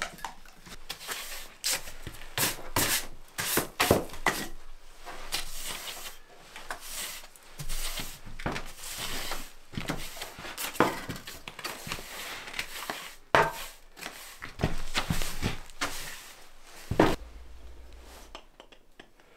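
Split firewood being stacked by hand, the logs knocking and rubbing against one another, then a broom sweeping the floor in short scraping strokes. The run of knocks ends with one sharp knock.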